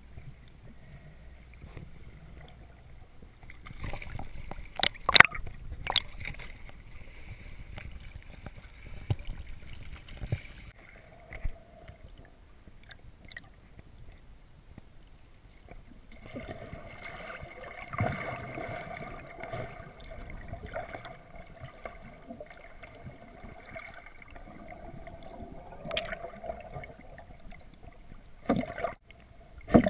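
Muffled underwater sound from a camera in its housing: a dull watery wash with a few sharp knocks against the housing, the loudest about five seconds in and just before the end. From about halfway a steady hum of several held tones comes in, the dive boat's motor carried through the water.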